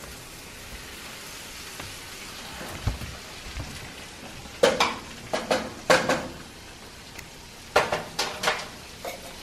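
Butter and bell pepper sizzling steadily in a skillet as canned whole kernel corn is emptied in, with two clusters of sharp knocks, about halfway through and again near the end.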